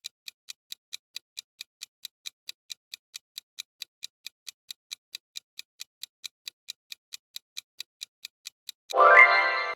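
Clock ticking quickly and evenly, about four ticks a second, as a quiz countdown timer. Near the end a short, louder musical sound effect comes in.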